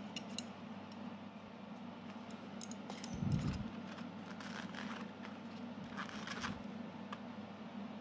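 Chopsticks and a styrofoam takeaway box being handled during a meal: scattered light clicks and scrapes, with one dull thump a little over three seconds in. A steady low hum runs underneath.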